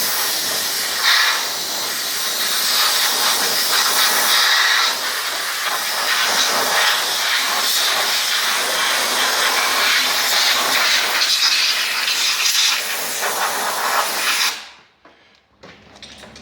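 A loud, steady hiss of a jet of spray or air, with no tone to it, cutting off suddenly near the end.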